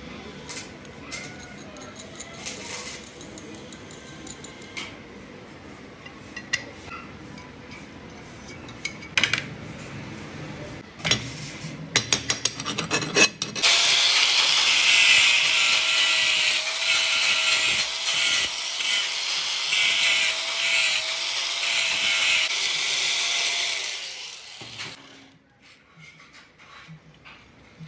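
Steel parts handled and clinking, then from about halfway an electric arc welding a nut onto a steel bracket: a loud, steady crackling hiss for about ten seconds that stops near the end.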